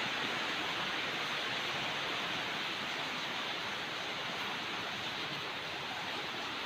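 Rain falling steadily, a dense, even hiss of water.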